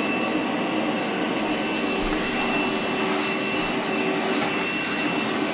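DeWalt cordless battery vacuum running steadily with a high whine while its hose picks up debris off the floor.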